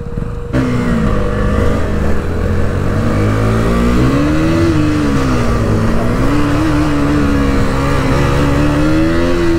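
KTM Duke motorcycle's single-cylinder engine running under way, its revs rising and falling with the throttle, over a steady rush of wind. The sound changes abruptly about half a second in, where the engine grows louder.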